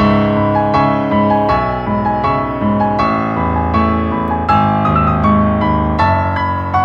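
Background piano music, single notes and chords struck one after another, each ringing and fading.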